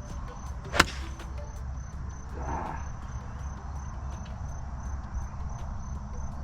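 A single sharp crack of a 6-iron striking a golf ball about a second in, over steady background insect chirping.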